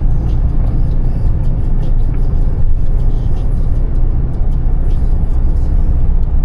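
Truck cab interior while driving: a steady, heavy low rumble of the diesel engine and tyres on the road, with scattered faint ticks.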